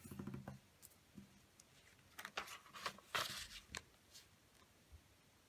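A square sheet of origami paper being handled: light taps and crinkles at the start, then a louder run of rustling and crackling from about two seconds in as the folded sheet is opened out and turned over, dying away near four seconds.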